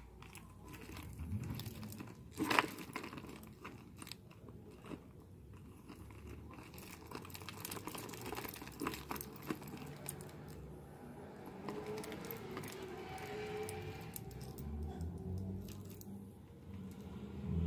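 Small metal charms, beads and chains clinking and jangling against each other as they are handled, with scattered clicks and light rustling; one sharper knock about two and a half seconds in.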